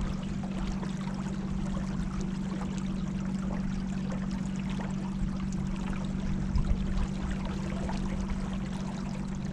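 River water trickling and splashing against a kayak, over a steady low hum.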